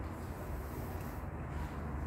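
Room tone: a steady low hum with a faint hiss, and no distinct sound.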